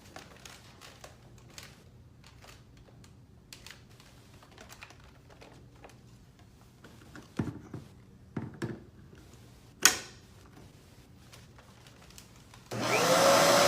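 Quiet clicks and knocks, then a sharp click, then near the end a vacuum cleaner switches on. Its motor whine rises quickly and settles into a loud, steady rush of air.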